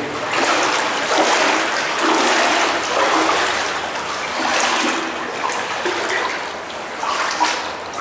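Water splashing and sloshing as someone wades through the shallow flow of an underground river inside a concrete culvert pipe, feet dragging over a silty bottom. The sound swells and eases with the steps.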